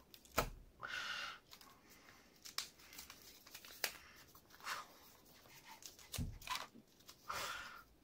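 Plastic packaging and a sticker's backing being peeled and crinkled by hand, in short rustling bursts with a few sharp clicks and light taps.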